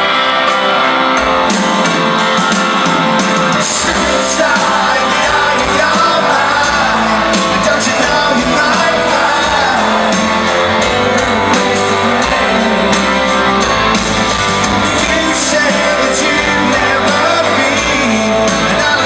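Live rock band playing loudly, with singing over it.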